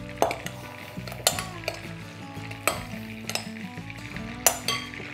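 A spoon stirring a wet crab mixture in a glass bowl, with several sharp clinks against the glass, over the steady sizzle of butter melting in a pan.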